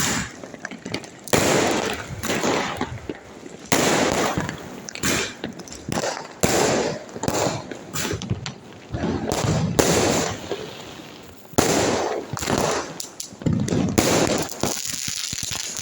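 Diwali firecrackers and fireworks going off one after another: a long run of sharp bangs at irregular intervals, roughly one to two a second, each trailing off in a rumbling echo, some loud and near, others fainter.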